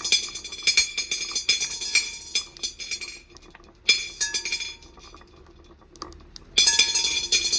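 Marbles rolling down a wooden marble run, a rapid clatter of clicks and bright ringing clinks as they knock against the wooden slopes and each other. The clatter thins out, then starts again suddenly about four seconds in and once more near the end.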